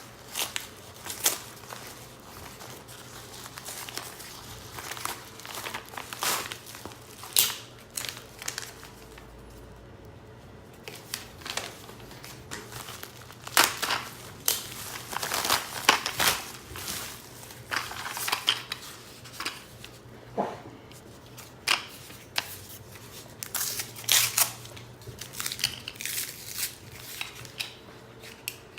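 A shipping package of coins being opened by hand: irregular rustling, crinkling and tearing of packing material, with scattered sharp crackles and clicks.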